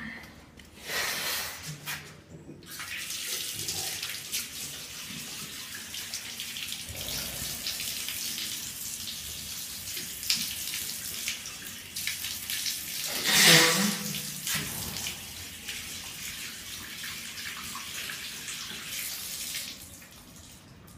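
Water running from a bathroom sink tap while a person washes his face under it, with a louder burst of sound about halfway through. The running water stops shortly before the end.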